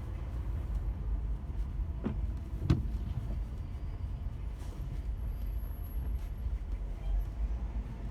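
A car driving, a steady low rumble of engine and tyres on the road. There are two short knocks a little after two seconds in, the second one louder.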